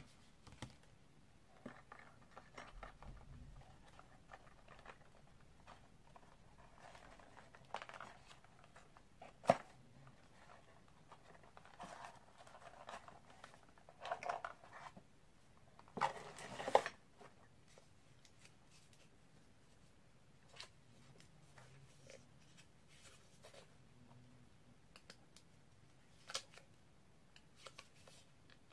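Hands handling a hard plastic accessory case and the gear packed in it: scattered clicks, rustling and scraping. There is one sharp click about a third of the way in and a longer spell of rustling a little past halfway.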